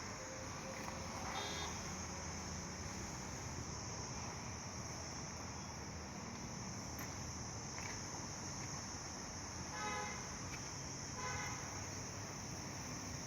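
Short vehicle horn toots, one about a second and a half in and two more near the end, over a steady high hiss and low background hum.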